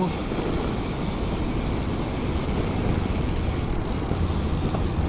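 Steady wind rush on the microphone of a road bike rolling slowly over sand.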